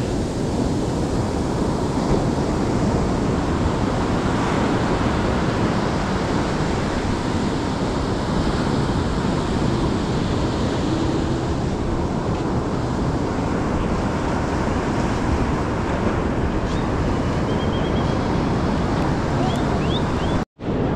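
Surf breaking and washing on a sandy beach, a steady wash of noise with wind rumbling on the microphone. The sound cuts out abruptly for a moment near the end.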